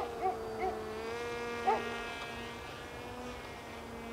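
Motor and propeller of a Zagi flying-wing RC plane buzzing steadily overhead, its pitch dipping slightly and coming back up about a second in. A few short, high yelps cut in over it, most of them in the first two seconds.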